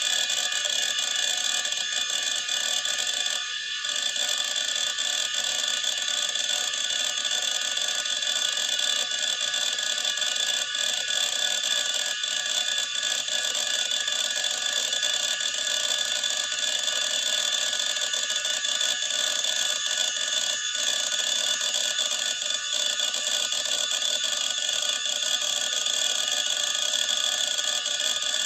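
Old PC hard disk drive running: a steady high-pitched whine from the spinning platters and motor, with scattered faint clicks of the heads seeking. It dips briefly about three and a half seconds in.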